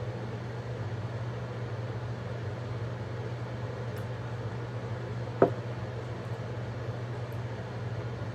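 Steady low room hum with faint background hiss, broken once about five seconds in by a single sharp knock.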